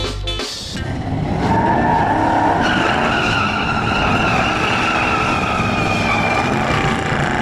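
Muscle car doing a burnout at the drag strip: the engine running hard with its rear tires spinning and squealing, a steady high squeal setting in about three seconds in.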